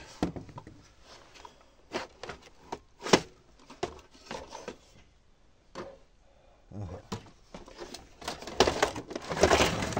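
Plastic clicks, knocks and scraping as the tubular plastic stand column of an LCD monitor is gripped, twisted and pulled against the monitor's plastic back. One sharp click about three seconds in, and a denser stretch of rattling and scraping near the end.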